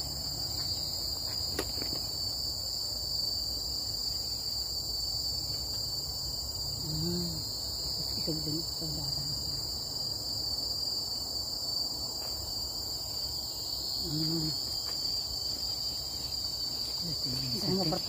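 Steady, shrill insect chorus at two high pitches, going on without a break. Faint voices murmur briefly a few times.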